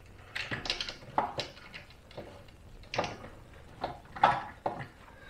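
Irregular metallic clinks and knocks, about a dozen, as the spark arrestor screen and exhaust cover parts of a Honda EU2200i generator are handled and fitted back together by hand.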